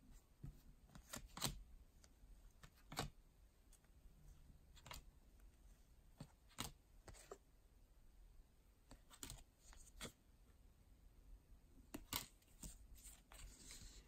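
Faint, irregular clicks and light paper snaps of baseball cards being slid off the front of a hand-held stack one at a time, a second or two apart.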